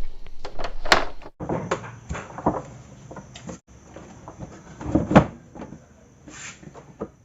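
Irregular clicks and knocks of the Yamaha PSR-550 keyboard's plastic parts being handled and pressed back into place, loudest about a second in and again near five seconds.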